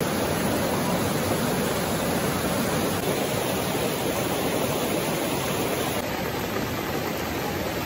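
Steady rush of a shallow, rocky mountain river running over boulders. About six seconds in it gives way to a similar steady hiss of rain.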